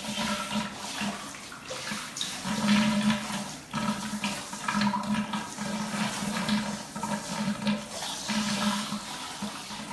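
Handheld shower head spraying water onto a wet dachshund and the bathtub: a steady rush of water with a low hum beneath it.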